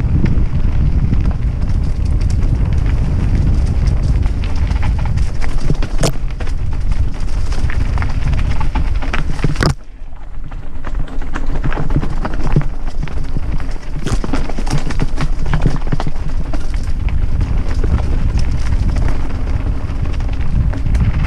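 Mountain bike rattling and clattering down a rough dirt and rock trail at speed, with frequent sharp knocks from the bumps over steady wind buffeting the helmet camera's microphone. The wind briefly drops about halfway through.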